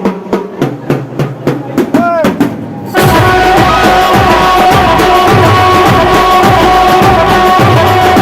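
Bollywood-style ringtone music: a drum beat of about three strokes a second with a short swooping pitch glide, then about three seconds in the full, louder band track comes in and carries on.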